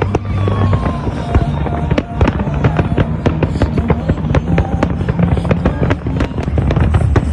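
New Year's Eve fireworks display: a rapid, continuous barrage of bangs and crackles, several a second.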